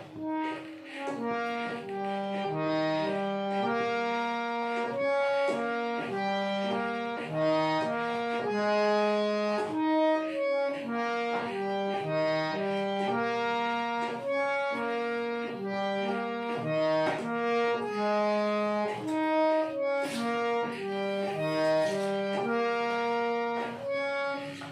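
Hand-pumped harmonium playing a simple melody: held notes with a lower note sounding beneath, moving from one to the next at an even pace.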